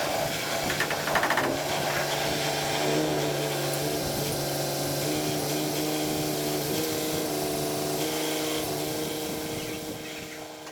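Diesel engine of farm machinery running steadily, with a hiss over it, fading away near the end.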